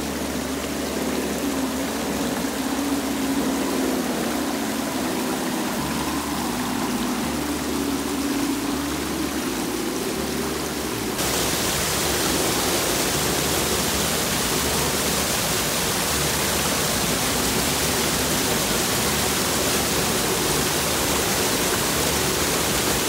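Shallow river water rushing over rocks, with a faint wavering whine from the RC truck's electric motor underneath. About eleven seconds in the rush turns suddenly louder and hissier as a small waterfall takes over, and it stays steady from there.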